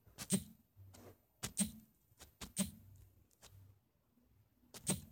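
Computer mouse clicking: sharp single clicks and close pairs of clicks at irregular intervals, with a faint low hum between them.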